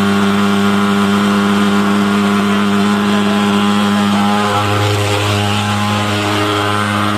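Thermal fogging machine's pulse-jet engine running with a loud, steady drone. Its pitch wavers briefly about four and a half seconds in as the machine is picked up and carried, then settles.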